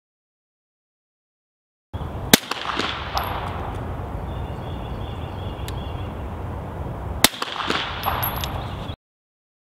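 Pistol fitted with a Hush Puppy Model 1 silencer in K configuration firing two single shots about five seconds apart. Each is a sharp report with a short echo, over a steady background hiss. The sound starts about two seconds in and cuts off near the end.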